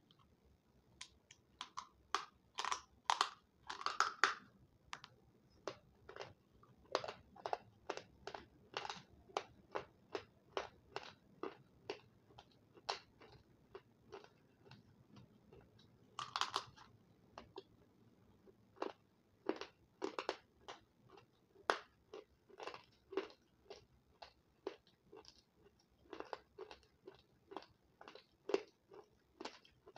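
A person biting and chewing hard, dry white sticks close to the microphone: a string of sharp crunches, about one or two a second, with the loudest run of bites in the first few seconds.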